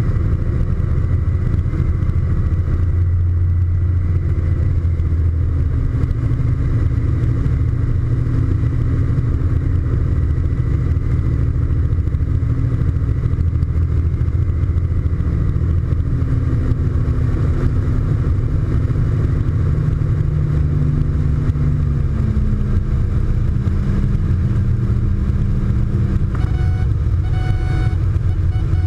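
Cessna T206's turbocharged six-cylinder piston engine and propeller, heard from inside the cockpit at low landing power with wind rush. The engine note steps down in pitch a few times past the middle as power comes back. A steady high tone comes in near the end as the aircraft reaches the runway.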